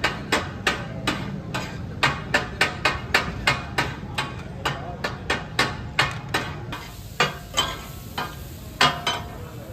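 Metal spatulas striking a large flat iron tawa griddle as fish katakat is chopped on it: a fast rhythm of ringing metallic clangs, about three a second, that slows and thins out after about seven seconds, with two loud strikes near the end.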